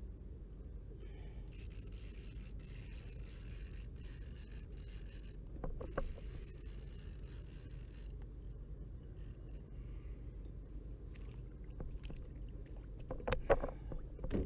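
Steady low rumble of wind and water around a kayak. A high hiss starts about a second and a half in and stops around eight seconds. A few sharp knocks come near the middle and near the end.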